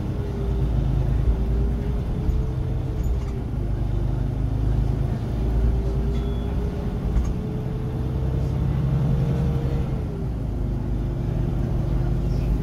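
Iveco Crossway LE bus's diesel engine and drivetrain running under way, heard from inside the passenger cabin as a steady low rumble. A whine over the rumble climbs slowly from about halfway through and drops back about ten seconds in.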